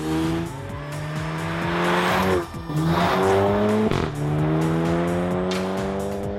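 Car engine accelerating hard through the gears, its pitch climbing steadily and dropping at two gear changes, about two and a half and four seconds in.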